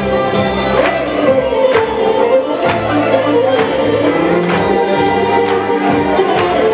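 Live Greek taverna music from a bouzouki and an electronic keyboard, a sustained melody over a sharp beat about once a second.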